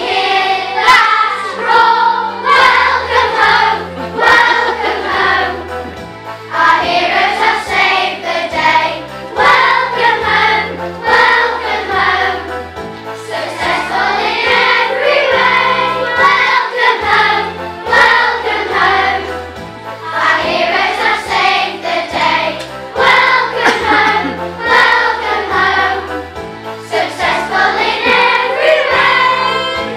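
A children's choir singing a song together over a backing accompaniment with a bass line that steps from note to note.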